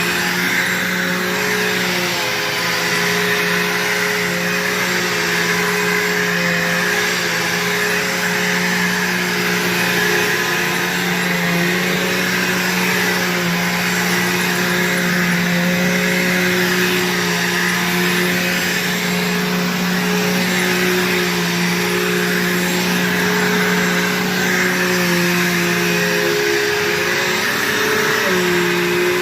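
Bissell PowerForce upright vacuum cleaner running steadily, its motor hum with a hiss of rushing air, the pitch wavering slightly and dipping briefly near the end.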